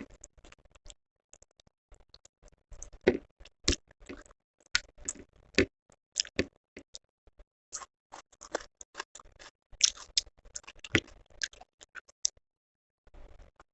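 Close-miked eating: chewing and wet mouth sounds that come as irregular crisp clicks and smacks, a few of them louder, with a short lull near the end.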